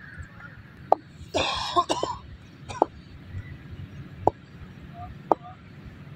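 A cough about a second and a half in, among sharp knocks that come roughly once a second, each with a brief ring.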